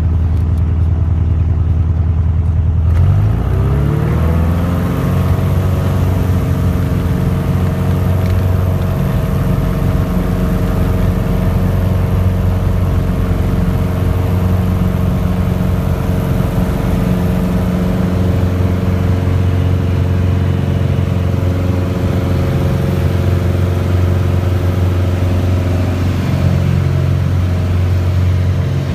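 A Piper Arrow's piston engine and propeller heard from inside the cockpit. About three seconds in, the engine note rises quickly as takeoff power comes in. It then runs steady and loud at full power for the takeoff.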